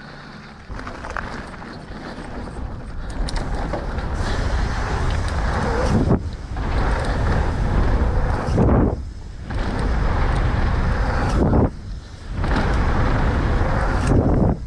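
Mountain bike riding down a dirt trail: a steady rush of wind on the microphone mixed with tyre and trail noise, building over the first few seconds and dropping away briefly four times.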